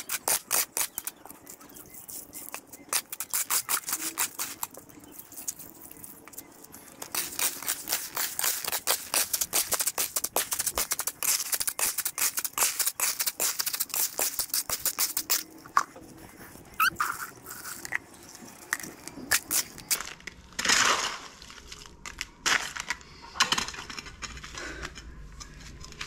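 A hoe scraping and chopping through a pile of wet cement and gravel mix, in a fast, steady run of gritty strokes for about fifteen seconds, then scattered scrapes and knocks.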